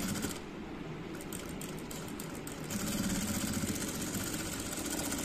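Sewing machine stitching a waistband onto trousers: it runs, eases off after about half a second to a slower patch of separate stitches, then runs steadily again from just under three seconds in.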